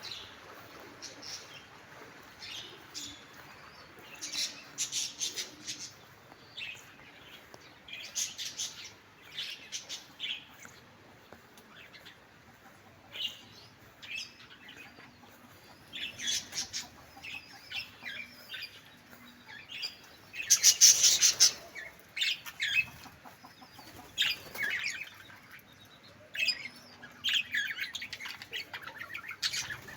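Birds calling in scattered bursts of short, high-pitched chirps and squawks, with a loud, dense cluster of calls about two-thirds of the way through.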